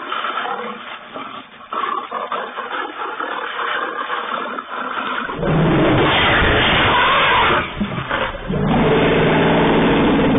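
Lion growls and roars played back from a loudspeaker as an elephant confronts it. About five seconds in, a much louder, heavy sound bursts in close to the microphone as the elephant reaches the camera setup, followed near the end by a loud pitched call.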